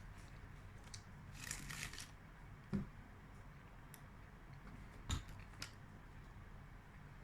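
Faint eating sounds from chocolate bonbons: a brief crinkle of a wrapper, then a few sharp, crisp clicks or crunches, the loudest about a third and two-thirds of the way through.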